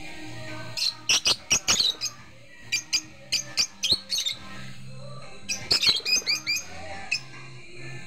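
Lovebird giving quick series of shrill, high chirps in three bursts, each a run of short sharp calls.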